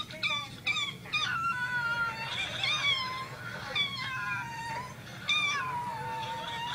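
A string of high, wavering animal cries, some short and rising and some drawn out and sliding down in pitch, with two voices overlapping at times.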